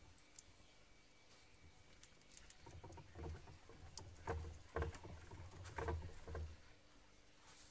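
Small pet rodents scrabbling about their enclosure, with a run of soft knocks and thumps starting about two and a half seconds in.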